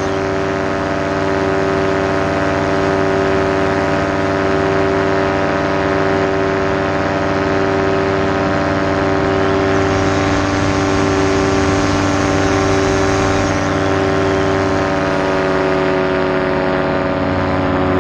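Paramotor's two-stroke engine and propeller running at steady cruise throttle in flight: one constant engine note with many overtones, its pitch holding nearly level.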